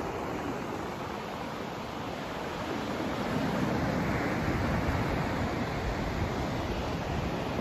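Continuous rushing noise of a white-noise sleep track: an even hiss, heavier in the low range, that swells a little about a third of the way in.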